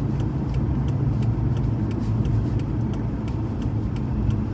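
Car driving, heard from inside the cabin: a steady low engine and road rumble, with faint light ticks a few times a second.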